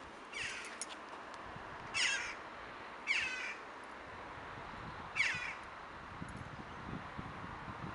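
A bird giving four short high calls, about one to two seconds apart, each a quick falling squeal, over a faint steady hiss. A faint low rumble builds near the end.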